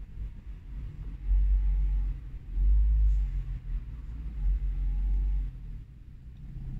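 Low rumble of a car moving slowly in traffic, heard from inside the cabin, swelling louder three times: about a second in, near three seconds and near four and a half seconds.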